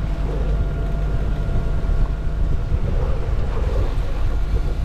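Sailboat under way: wind buffeting the microphone and water rushing along the hull over a steady low rumble.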